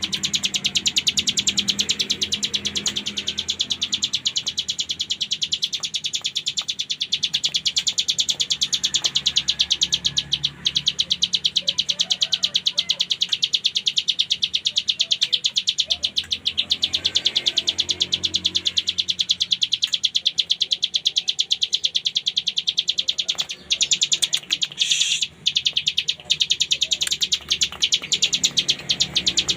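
A ciblek gunung (mountain prinia) singing its 'ngebren' song in full: a very fast, unbroken rattle of short, high, dry notes, like a machine-gun trill. It breaks off briefly a couple of times near the end.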